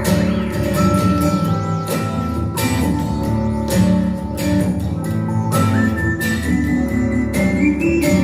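Instrumental passage of an Italian pop song played through an IKEA Eneby / Vappeby stereo speaker pair: guitar and held keyboard-like notes over a steady beat, with no singing.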